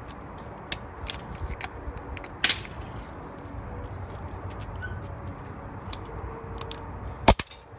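Scattered light clicks and taps from hand work on the transmission's wiring harness clips, over a steady low background noise. A sharp knock near the end is the loudest sound.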